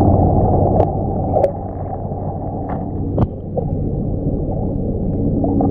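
Stream water flowing, heard underwater through a GoPro's waterproof housing: a muffled, steady rumble with a low hum, broken by a few sharp clicks, the loudest a little after three seconds in.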